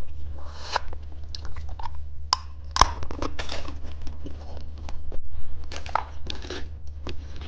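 Candy and its plastic wrappers handled and crunched close to the microphone: scattered short clicks, crunches and crinkles. A steady low hum runs underneath.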